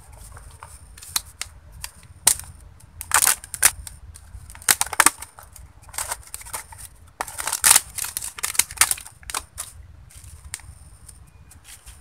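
The thin lid of a small plastic bait cup crinkles and crackles as it is peeled open by hand. The sound comes as a run of sharp crackling bursts, loudest in the middle.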